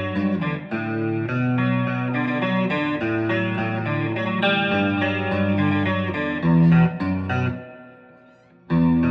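Electric guitar played clean through a Roland JC-120 amp with chorus and reverb on, picking a run of single notes and chords. A louder chord near the end rings out and fades almost to silence, then the playing starts again just before the end.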